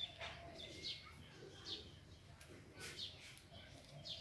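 Small birds chirping faintly: about eight short, high chirps scattered over the few seconds.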